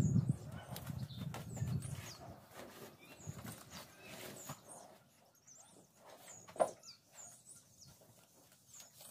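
Small birds chirping in short repeated calls over the rustle of dry straw fodder being gathered and scattered light knocks; the rustling is strongest in the first two seconds, and one sharp clack comes about six and a half seconds in.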